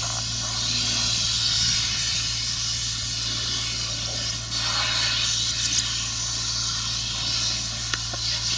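A machine's engine running steadily with a low hum under a broad, even hiss.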